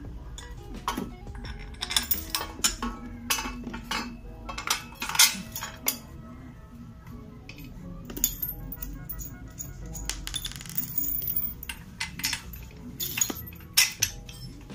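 Steel tube parts and bolts of a motorcycle front wheel clamp clinking and knocking together as the frame is fitted by hand, in a string of irregular sharp clinks, with background music under them.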